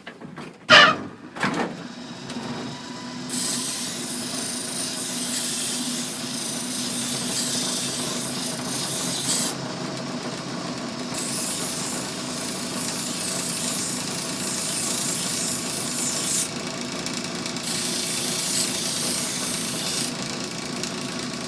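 Two clicks, then an electric sharpening grinder's motor humming steadily, with three long passes of a knife blade ground against it, each a loud hiss several seconds long with short pauses between.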